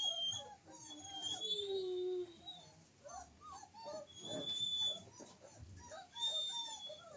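Dogs whining and whimpering: many short whines throughout, with a few longer high-pitched whines among them.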